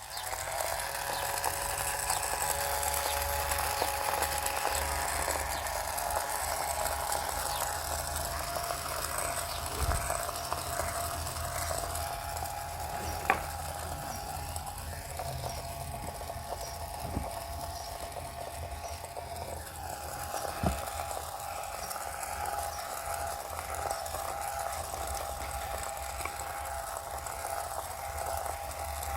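A small electric motor running steadily with a continuous whine and a low hum, with a few separate clicks along the way.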